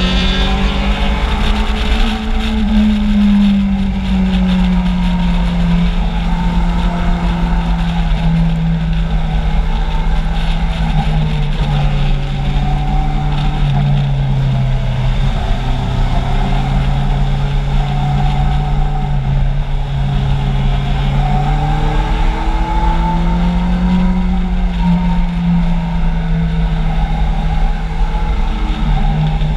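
Kawasaki Z750's inline-four engine heard on board under riding load, its pitch rising over the first couple of seconds, sagging through the middle, climbing again about three-quarters of the way through and dropping near the end as the throttle is rolled on and off through the bends. A steady wind rumble on the bike-mounted microphone lies under it.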